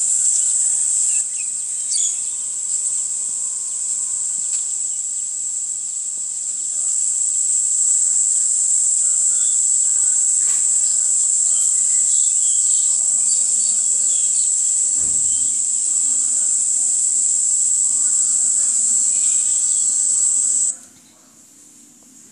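Steady, high-pitched insect buzzing recorded among weeds and grass, with scattered faint chirps and a brief low bump about fifteen seconds in. The buzzing cuts off suddenly near the end.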